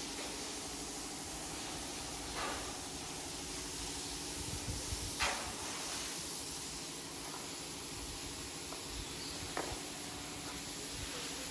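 A steady hiss with a low, even machine hum beneath it, broken by three brief knocks or clatters, the loudest about halfway through.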